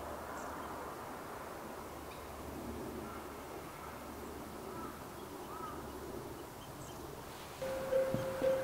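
Faint outdoor ambience with a few small chirps, then about seven and a half seconds in a railway level-crossing warning bell starts ringing, a steady electronic tone repeating about twice a second, with a few knocks just after it starts.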